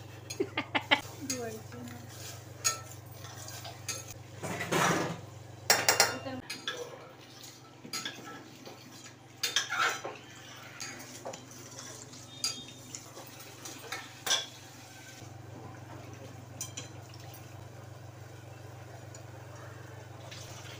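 A metal spoon scraping and clinking against the inside of a stainless-steel pressure cooker as a thick masala is stirred, with irregular clicks and a few louder knocks, over a faint steady hum.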